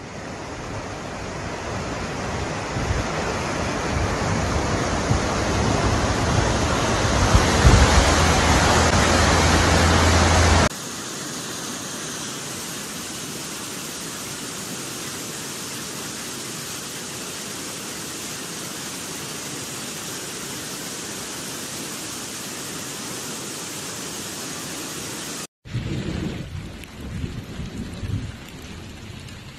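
Muddy floodwater rushing down a wadi: a roaring rush that grows louder over the first ten seconds, with wind buffeting the microphone. About eleven seconds in it cuts abruptly to a quieter, even rush of another flood torrent, and near the end it cuts again to an uneven, choppier water noise.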